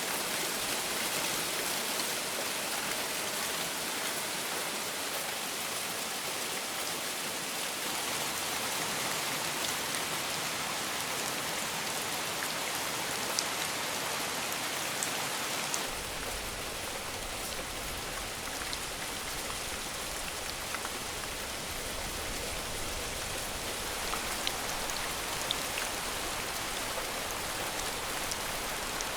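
Steady rain falling, with a few sharper drop ticks here and there. About halfway through, the sound turns deeper as a low rumble joins it.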